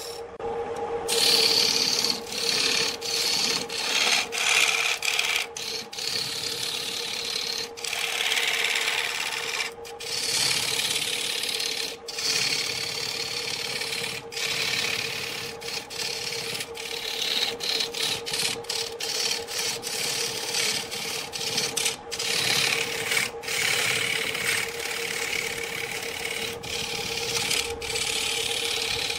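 A wood lathe turning a large wooden blank, a hand-held turning tool rasping against the spinning wood in uneven strokes that swell and fade, over the steady hum of the lathe's electric motor. The sound cuts out briefly now and then.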